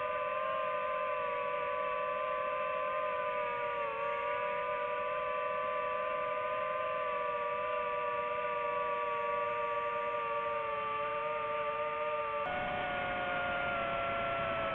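Quadcopter drone motors and propellers hovering: a steady whine of several close pitches, dipping briefly about four seconds in and shifting pitch near the end.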